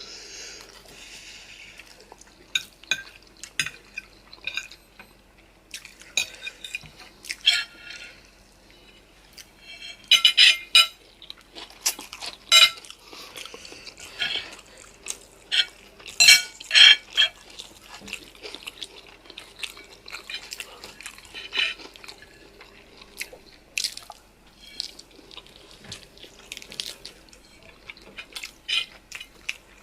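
Close-miked eating of spicy noodles and chicken: wet chewing and mouth clicks, with occasional clinks of utensils. The sounds come in irregular short bursts, busiest in the middle.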